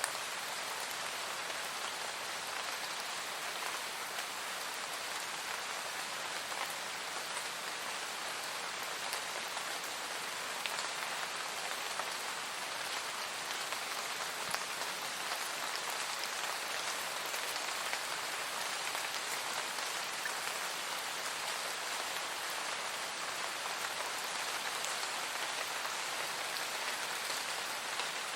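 Steady, even rain falling, with scattered individual drops ticking through the hiss.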